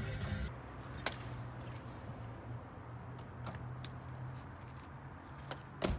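Light clicks and small rattles inside a parked car over a steady low hum, then a sharp car door clunk near the end.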